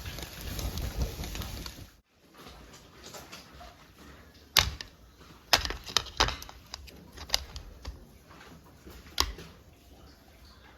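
Steady rain for about the first two seconds, cutting off abruptly. Then a quieter stretch of scattered sharp clicks and knocks, about five louder ones, typical of cutlery and dishes clinking at a meal.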